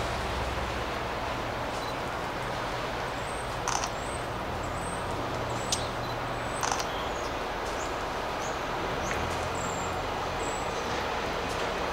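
Distant diesel freight locomotive rumbling steadily as it approaches, with a few short bird calls and chirps over it.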